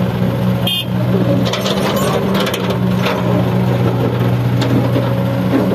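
Diesel engine of heavy earthmoving machinery running steadily, with scattered sharp clanks and knocks, most of them between about one and three seconds in.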